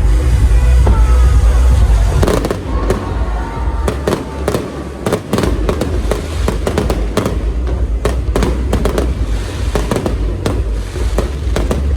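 Aerial fireworks going off in a rapid, dense run of bangs and crackles that begins about two seconds in, with loud bass-heavy music playing before and under them.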